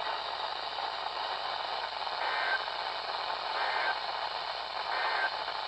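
Radio static hiss from an alert-broadcast receiver, with three short digital data bursts about a second and a half apart: the Emergency Alert System end-of-message code that closes a warning.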